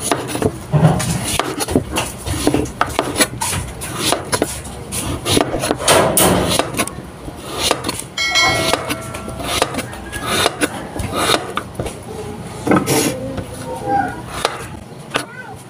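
Kitchen knife chopping squash on a cutting board: irregular knocks of the blade through the flesh onto the board, coming in quick runs. About eight seconds in, a short electronic chime rings out.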